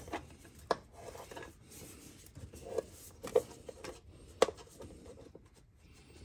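Rubber alternator drive belt being worked onto the pulleys by hand: quiet rubbing with a few light knocks and clicks spread through.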